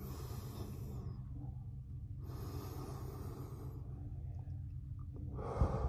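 Slow, deep breaths close to the microphone, three long breaths in a row, over a steady low hum.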